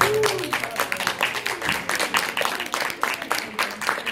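Audience applauding: many people clapping steadily, right after the final note of the song.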